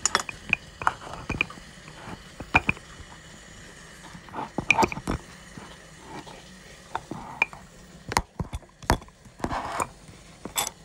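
Handling noise from a phone being picked up, moved and set against surfaces: scattered irregular clicks, taps and knocks, with a cluster of sharper knocks around eight to nine seconds in.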